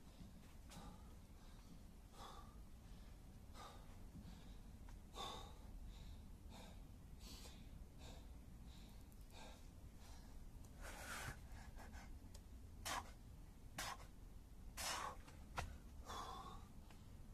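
A man breathing hard through the mouth, out of breath from high-intensity kettlebell and burpee work, with a short, faint breath about once a second. The breaths grow louder and more gasping in the second half.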